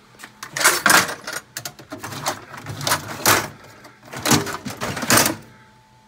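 Metal tool chest drawers sliding open and shut, with tools clattering and scraping inside them as someone rummages through them, in several bursts.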